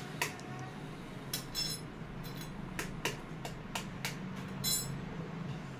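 An egg tapped against the rim of a stainless steel bowl to crack it: a series of sharp taps, two of them ringing on as a metallic clink, about a second and a half in and near the end.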